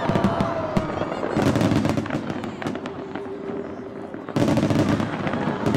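A fireworks display going off: a dense run of sharp bangs and crackles that eases a little, then a sudden louder burst about four and a half seconds in.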